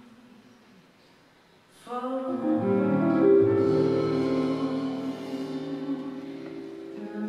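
Live vocal jazz with a piano trio: after a soft, almost quiet opening, the band comes in with a full piano chord about two seconds in, and a female singer holds long notes over it as the chord rings on and slowly fades.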